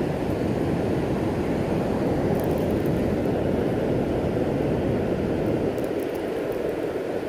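Steady low rushing of fast river current and falls water, without a break.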